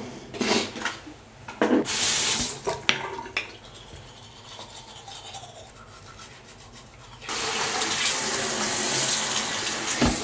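Water running, likely from a tap: a few short gushes and some light knocks in the first three seconds, then a steady flow from about seven seconds in.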